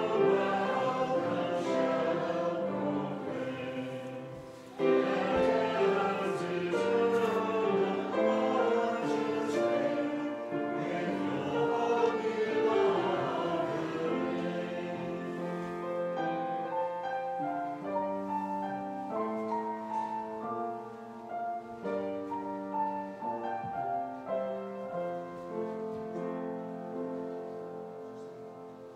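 Congregation singing a hymn with instrumental accompaniment; about halfway through the voices stop and the instrument plays on alone in slow held chords, fading away near the end.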